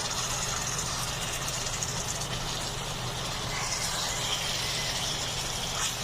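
Rohu fish pieces in mustard-oil spice paste sizzling in a pan on the stove as they are turned, with a steady low hum underneath.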